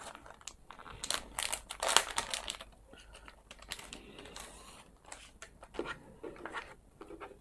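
A face-mask package being opened by hand: irregular crinkling and rustling of the packaging, busiest about one to two seconds in, then sparser handling sounds.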